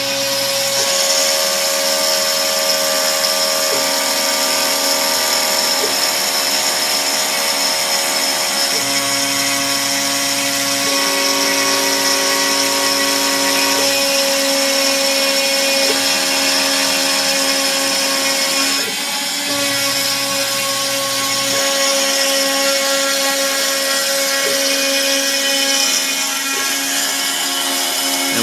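Bosch Colt trim router running steadily at high speed with a 1/8-inch single-flute end mill, cutting a tenth-of-an-inch-deep pass into scrap shelving board. Below its whine, the CNC machine's stepper motors hum at pitches that shift every few seconds as the cutter changes direction along the octagon.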